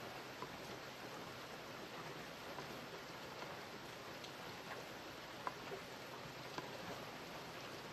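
Steady rain falling, an even hiss with a few louder single drops ticking now and then.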